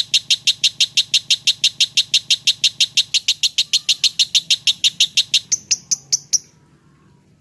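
Lovebird singing a long, rapid chirping trill of about eight sharp high chirps a second, slowing after about three seconds and breaking off about six seconds in.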